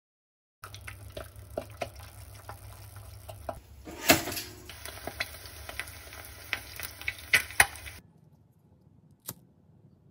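Eggs frying in a pan, a steady sizzle full of small crackles and pops, with one sharp knock about four seconds in. The sizzle cuts off about eight seconds in, and a lighter clicks once shortly after.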